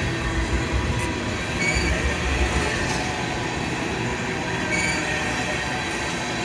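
Tank cars of a long CSX freight train rolling past, a steady rumble of wheels on the rails.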